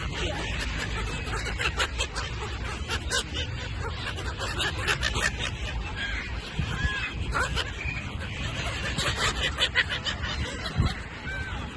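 A flock of seagulls calling, many short arched squawks overlapping, over a steady low rumble with scattered clicks.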